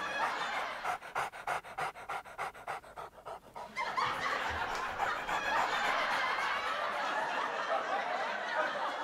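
Pug panting quickly and evenly, about five pants a second, for the first three and a half seconds; then a denser, steady background sound takes over.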